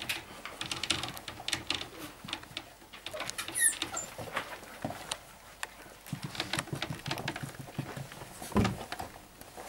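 Airedale Terrier puppies scrabbling and pattering about on a blanket-covered board, with many light clicks and rustles. A short high squeak comes about three and a half seconds in, and a louder thump near the end.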